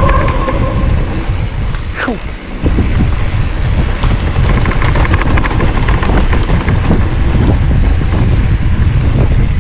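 Mountain bike descending a rough trail: wind buffeting the microphone over a steady rumble of tyres on the ground, with a run of rattling clicks midway.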